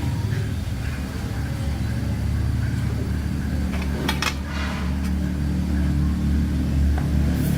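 A motor or engine running steadily with a low hum, with a brief clatter about four seconds in.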